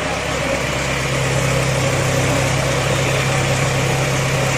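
Mahindra Arjun tractor's diesel engine running in a steady, unchanging drone while the tractor creeps its front wheels up onto a stepped ramp.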